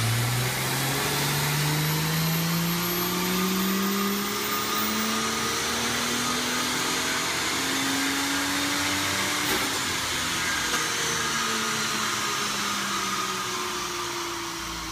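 A Ford FG Falcon G6E Turbo's turbocharged 4.0-litre inline-six making a full-throttle chassis-dyno power run on its stock turbocharger at 20 psi boost. The engine note climbs steadily for about nine seconds, then falls away as the run ends and the engine slows down.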